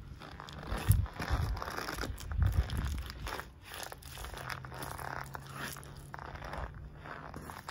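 Nike Air Force 1 Mid sneakers crushing bananas on concrete: wet squelching and crunching of peel and pulp under the soles, with a few dull stomps in the first three seconds.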